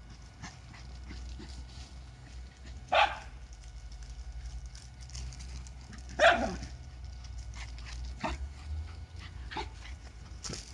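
Two barks from Lakeland terriers at play, about three seconds apart, the second falling in pitch.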